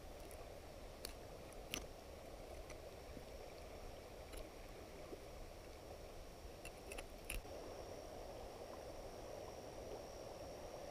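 Knife point working at a rock bass's head, likely spiking the brain: a few faint sharp clicks in two short clusters. A faint steady high hum runs underneath.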